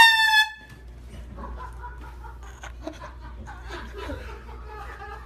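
One short, very loud air horn blast, under a second long, its pitch dipping slightly as it starts and then holding steady. Laughter follows.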